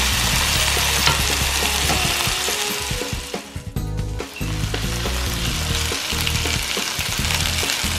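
Skin-on chicken thighs sizzling as they sear in hot oil in a frying pan. The sizzle drops away briefly a little past the middle.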